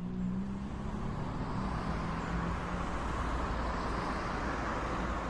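Street traffic: cars and a bus driving by, a steady hum of engines and tyres. A low engine note fades out after about two seconds.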